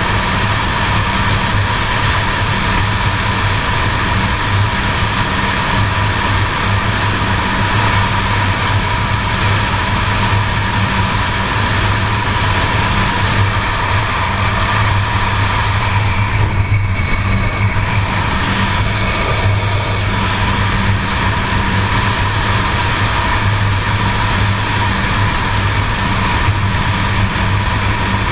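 1978 Suzuki GS750's air-cooled inline four-cylinder engine running steadily at cruising speed under way, with wind and road noise over it. The hiss dips briefly about two-thirds of the way through.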